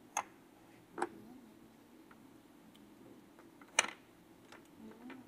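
Wooden puzzle pieces knocking lightly as they are handled and set down on the table and in the tray: three clear clacks, the loudest a little under four seconds in, with fainter ticks between.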